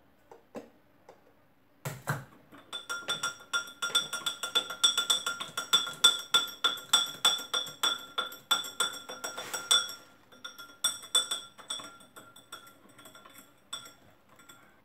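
A spoon stirring in a drinking glass, clinking quickly against its sides so that the glass rings, about four or five clinks a second. The clinking starts about two seconds in, slows and thins out after about ten seconds, and stops near the end.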